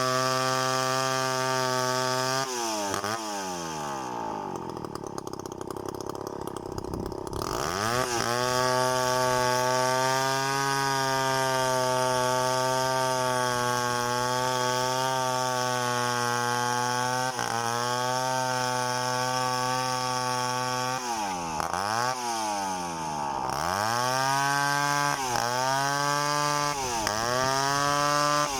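Chainsaw running at high revs, dropping to a low speed about two seconds in and revving back up a few seconds later. Near the end it dips and rises again several times in quick succession.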